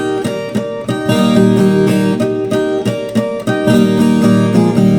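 Instrumental break of a Brazilian caipira song: viola caipira strings plucked and strummed in quick repeated chords over a steady bass line, with no singing.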